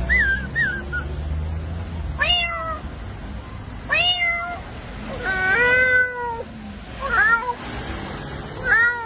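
A cat meowing repeatedly, about five separate calls with a longer, drawn-out one in the middle.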